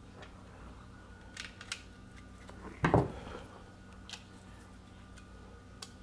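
Small plastic clicks and taps as a garage-door wall keypad's plastic housing is handled and fitted together, with one louder dull thump just before three seconds in.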